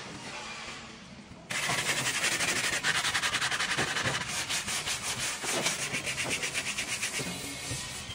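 Wooden parquet board edge being sanded by hand in rapid, even back-and-forth strokes. The sanding starts abruptly about one and a half seconds in and eases off near the end.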